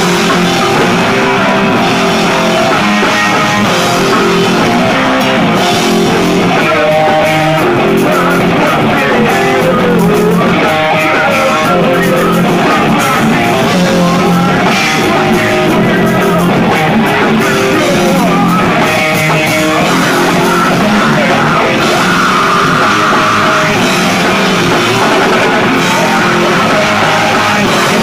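Rock band playing loudly in a small rehearsal room, with electric guitar and drum kit.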